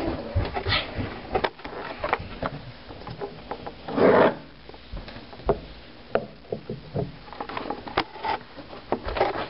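Handling noise: scattered light knocks, clicks and rubbing, with a louder rustle about four seconds in.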